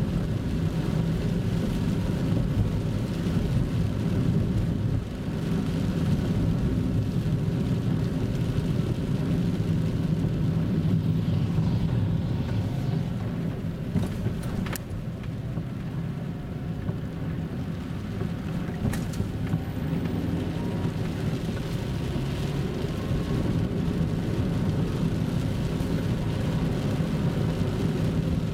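Car driving along a wet road, heard from inside the cabin: a steady low rumble of engine and tyres, easing slightly about halfway through, with two faint clicks.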